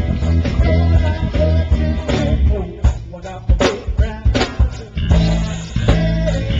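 Live band playing loud, amplified rock music: electric guitar and bass guitar over a drum kit, with strong bass notes and sharp drum hits.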